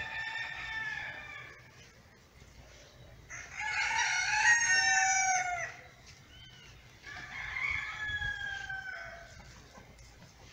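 Roosters crowing three times in turn, each crow about two seconds long and trailing down in pitch at the end, the middle one loudest.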